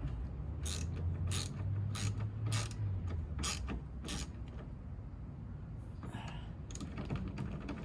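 Hand ratchet clicking in a run of short strokes about half a second apart, then a few more near the end, as the bolt holding the replacement horn is tightened.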